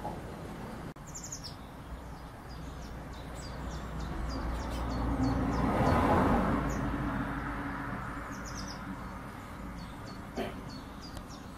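Blue tits calling: short, thin, high notes in quick series, with a brief trill about a second in. A low rushing noise swells to its loudest midway and fades again, and a single knock comes near the end.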